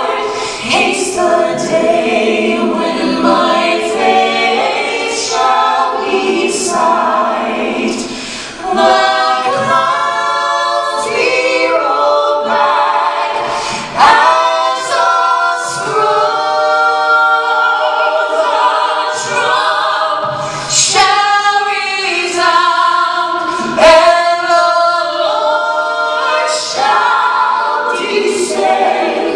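Three women and a man singing a cappella in close harmony through microphones, several voice parts moving together.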